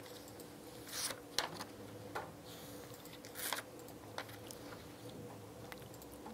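Quiet room with a steady low electrical hum, broken by a few soft clicks and two short rustles about one second and three and a half seconds in.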